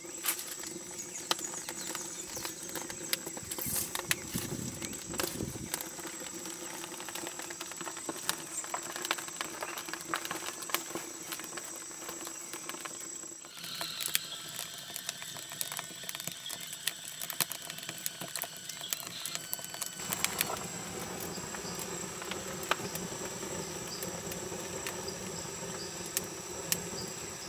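Split-wood fire burning in a rocket stove's firebox, crackling with frequent sharp pops, over a steady high chirring of crickets or other insects. The background tone shifts abruptly twice.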